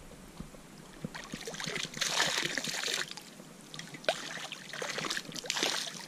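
Shallow river water splashing and sloshing as a hand reaches in and pulls a baseball bat up from the bottom, with water trickling and dripping off it. The splashing swells about two seconds in and again in the last two seconds.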